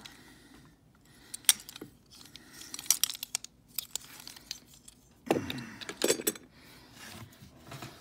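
Small diecast toy dump truck with a metal body and plastic bed and wheels being turned over and fiddled with in the hands: scattered light clicks and rattles, with clusters about three seconds in and again past the five-second mark.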